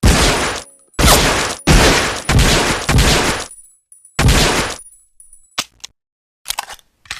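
M1911A1 .45 pistol firing about six shots at an uneven pace over the first four and a half seconds, each with a ringing tail, followed by a few light metallic clicks and clinks.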